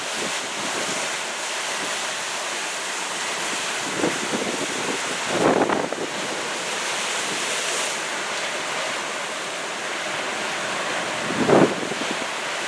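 Ocean surf washing ashore as a steady rush, with wind buffeting the microphone in brief gusts a few times.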